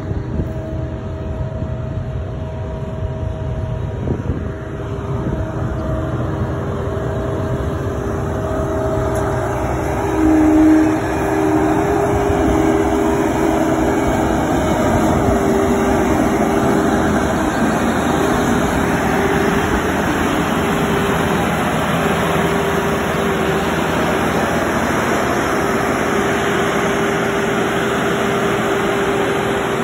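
EcoLog 688D harvester running: engine and hydraulics with a steady whine over a low rumble. About ten seconds in there is a brief louder surge, and after that the sound fills out into a louder, steady rushing.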